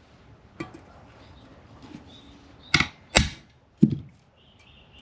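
Sharp metal clacks as valve-train parts (springs, retainers and a tube-type spring tool) are handled on an aluminium K24A cylinder head. There is a small click early and three loud clacks in quick succession past the middle.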